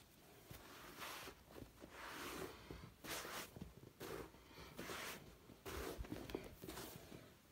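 Irregular rustling and scuffing of fabric and carpet, a soft noisy burst about once a second, as someone moves about on the floor.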